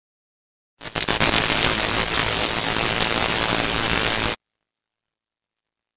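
Electronic static sound effect for a logo animation: a hiss that crackles on about a second in, holds loud and steady, and cuts off suddenly after about three and a half seconds.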